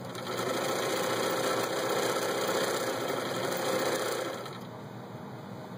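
Vintage Bernina Record 830 sewing machine running at its low speed setting, stitching one of its built-in stitch patterns for about four seconds, then stopping.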